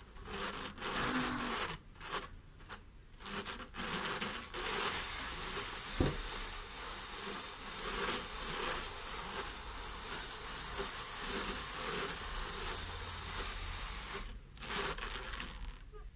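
Hand-cranked drum carder turning, its carding drums whirring as fibre is carded into a batt: a few short stop-start turns, then a steady run of about ten seconds that stops near the end. A single sharp knock about six seconds in.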